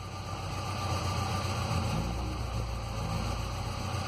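2006 Ford Ranger's 2.3-litre four-cylinder engine idling with a steady low rumble, running very unstable: a misfire in cylinder 3, which has lost all compression past its exhaust valve.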